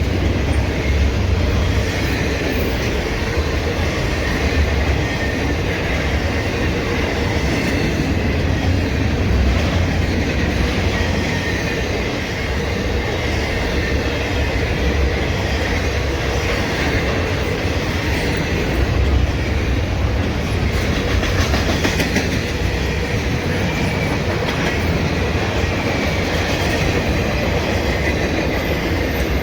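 Norfolk Southern freight train rolling past: a steady, continuous rumble of the train's wheels on the rails.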